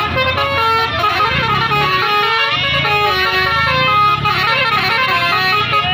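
A bus's 'telolet basuri' musical horn playing a quick melody of short, stepped notes, several pitches sounding together, over a low steady rumble.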